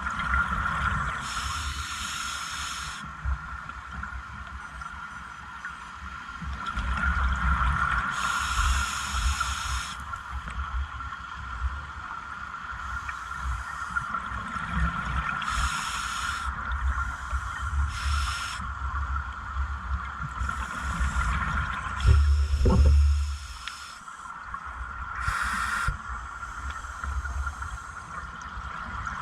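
Scuba diver breathing through a regulator underwater: several hissing inhalations at irregular intervals, with bubbling exhalations rumbling between them. A steady high whine runs under it all.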